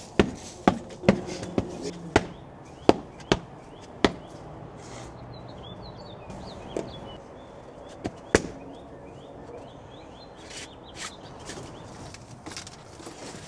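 Steel shovel blade striking and chopping into the ground, sharp hits about two a second that stop after about four seconds, with one more hit later. Birds chirp faintly through the second half.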